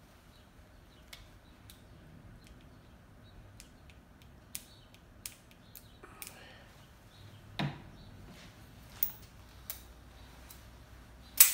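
Scattered light clicks and knocks from handling a revolver and a small metal flashlight, with the flashlight stood on a wooden table partway through. One much louder sharp click comes near the end.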